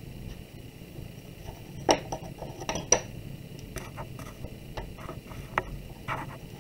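Wooden dowel being rolled over a clay slab, with scattered light clicks and knocks of wood against wood, the loudest about two and three seconds in.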